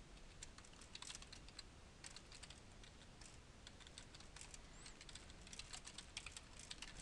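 Faint typing on a computer keyboard: quick runs of keystrokes in uneven bursts with short gaps between them.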